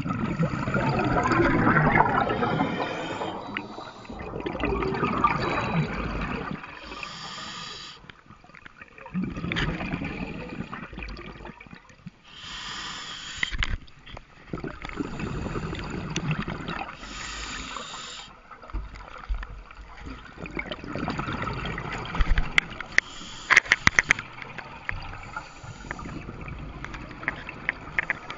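Scuba diver's own regulator breathing underwater, repeating every few seconds: a short hiss on each inhalation, then bubbles gurgling out on the longer exhale. A quick run of sharp clicks comes about three-quarters of the way through.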